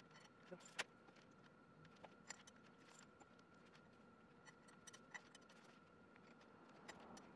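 Near silence: faint scattered small clicks and ticks of bolts and a thread-locker bottle being handled at an aluminium transmission adapter plate, over a faint steady high hum.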